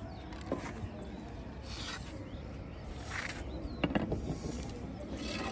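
Faint scuffing and rubbing with a few light knocks as a person climbs down over a concrete ledge gripping a wooden pole. The sharpest knocks come about half a second in and again around four seconds in.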